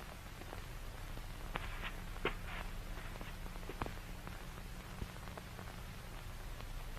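Steady low hum with faint static hiss, broken by a few soft clicks and rustles.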